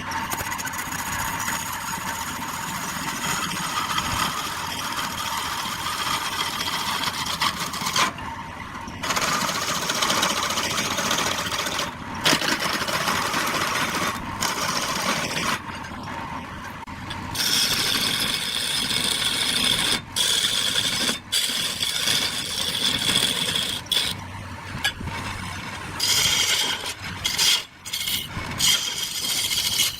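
Wood lathe with a cutting tool scraping and rasping against the spinning wood. The sound breaks off abruptly several times, mostly in the second half.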